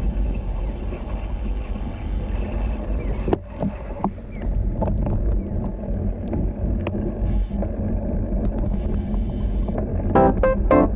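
Steady low rumble and hiss of riding noise from a small-wheeled folding bicycle in the rain: tyres on wet pavement and air over the camera's microphone, with scattered light clicks. Music comes in about ten seconds in.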